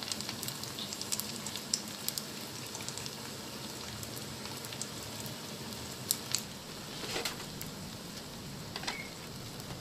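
Beaten eggs frying in hot oil in a pan over medium heat: a steady sizzle with scattered pops and crackles.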